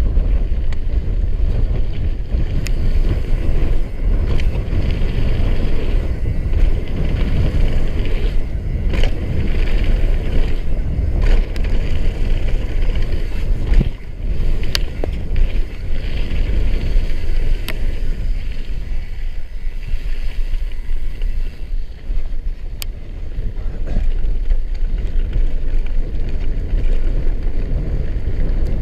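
Downhill mountain bike descending a gravel trail at speed: steady rumble of tyres on loose gravel and wind buffeting the camera's microphone, with the bike rattling and a few sharp clicks.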